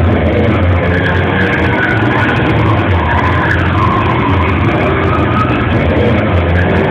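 Loud, continuous engine noise with wavering tyre squeal from stunt-show cars on the arena track, recorded so loud that the sound is overloaded and distorted.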